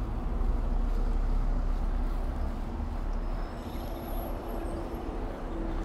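Wind rumbling over the camera microphone of a moving road bike, strongest in the first couple of seconds, with city traffic noise around it.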